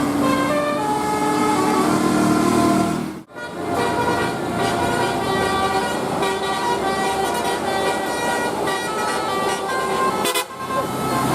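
Indonesian bus 'telolet' musical horn playing a tune of stepped notes, several tones sounding together. The sound cuts out abruptly about three seconds in and again near the end, then another horn tune follows.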